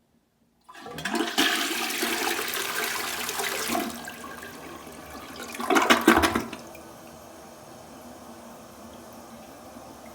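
Toilet flushing: a loud rush of water starts suddenly under a second in, eases off, then surges again in a brief gurgle about six seconds in as the bowl empties. A steady, quieter hiss of water follows to the end.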